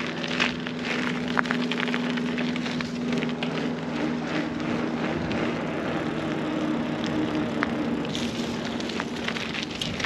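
Mountain bike rolling along a trail: the tyres crackle and crunch over the path surface with many small clicks, under a steady low hum.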